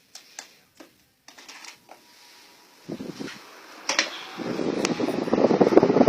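Scattered light clicks and knocks, then a sharper click about four seconds in. Right after it the Britânia Fortis Ventus table fan starts, and its steady rushing blow builds up and gets louder toward the end.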